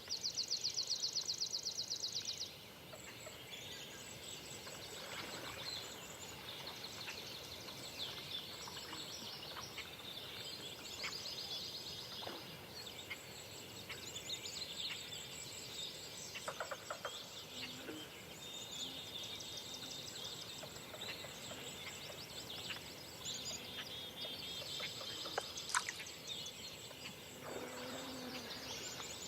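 Dawn chorus of many birds singing and calling at once, with a loud, rapid, high trill over the first couple of seconds and a few lower calls later on.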